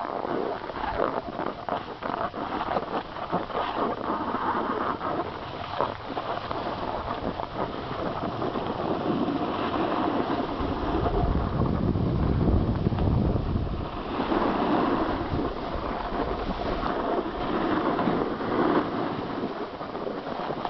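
Wind rushing over the camera microphone while riding down a groomed ski run, over a steady scrape of edges sliding on packed snow. The low wind rumble is heaviest from about eleven to fourteen seconds in.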